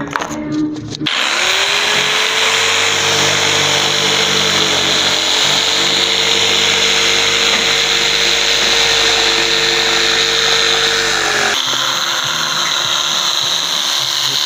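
An electric jigsaw starts about a second in, its motor pitch rising and then holding steady as the blade saws curves through oriented strand board. A little before the end the steady motor tone drops away while the sawing noise carries on.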